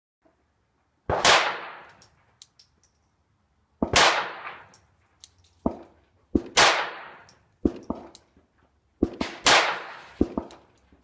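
Pistol gunshots, about six sharp reports fired irregularly a second or two apart, each with a short echoing tail.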